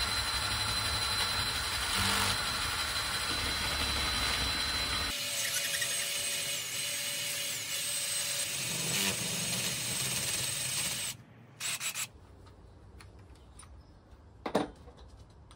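Cordless drill driving a spade bit through PVC pipe: the motor runs steadily while the bit cuts and rubs in the plastic. The drilling stops about eleven seconds in, followed by a few brief sounds and a single sharp click near the end as the drill is handled.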